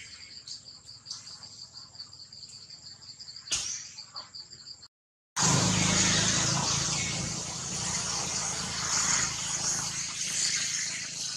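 Steady high-pitched drone of insects in the forest canopy, with faint ticks and rustles. About five seconds in, the sound cuts out briefly and comes back as a louder rushing noise, with the insect drone still beneath it.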